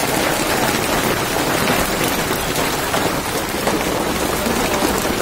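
Hail and rain falling on a road and hard surfaces: a dense, steady patter of many small hits.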